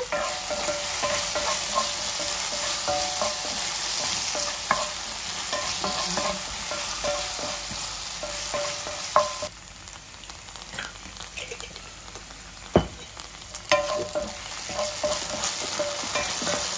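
Onion, capsicum and green chillies sizzling in a cast-iron skillet in tomato and soy sauce while a spatula stirs and scrapes them around the pan. The sizzle drops quieter for a few seconds past the middle, with one sharp knock on the pan in that stretch.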